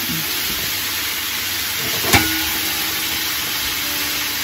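Napa cabbage and mixed vegetables sizzling steadily in a hot frying pan, with one sharp tap about two seconds in.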